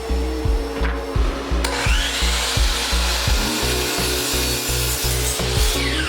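A power saw cutting plywood: a noisy whirring cut comes in about one and a half seconds in and winds down with a falling pitch near the end. Background music with a steady beat plays throughout.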